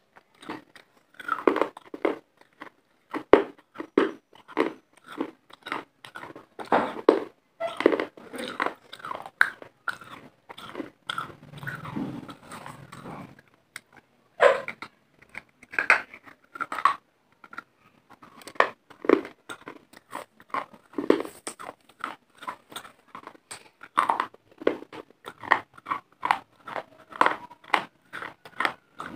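Dry clay pieces being bitten and chewed close to a clip-on microphone: sharp, crisp crunches in quick irregular runs, pausing briefly twice.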